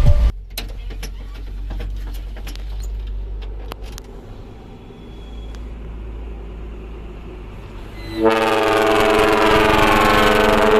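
A dump truck's engine idling low with a few sharp clicks; about eight seconds in, its trumpet air horn ('kapal darat' ship-style horn) comes in with a loud, steady blast that holds to the end.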